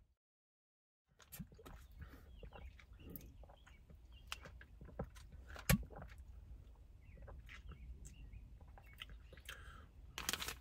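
About a second of silence, then quiet sounds of drinking a protein shake from a plastic shaker bottle: swallowing and small handling noises, with a foil pouch being handled. One sharper click comes a little past halfway.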